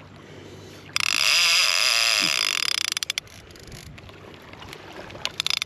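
Penn Squall 50 conventional reel's drag screaming as a hooked shark strips line off against a light drag setting. It comes as one loud run of rapid clicks about a second in that breaks up after two seconds, then a shorter run near the end.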